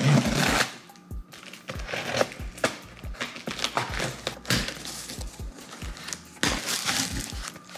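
Box cutter slicing through packing tape on a cardboard box, with cardboard scraping and crinkling, loudest just at the start and again about six and a half seconds in. Background music with a steady beat plays throughout.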